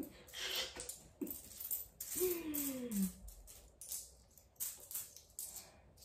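Coins clinking and rattling as they are picked from a pile and set into stacks, a scatter of short metallic clicks throughout. About two seconds in comes a brief falling voice-like hum.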